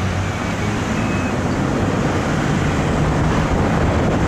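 Road traffic on a highway: a steady rush of passing vehicles with a low engine hum.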